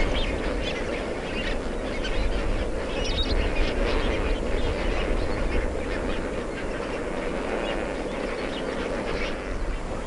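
A large flock of lesser flamingos calling all at once: a continuous dense chorus of many overlapping honking, gabbling calls, over a steady low rumble.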